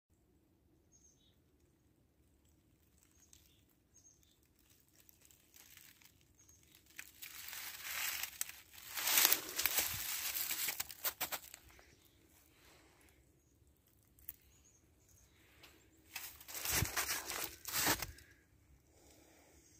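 Outdoor ambience with faint, scattered high bird chirps and two louder stretches of rustling, crunching noise, one in the middle and one near the end.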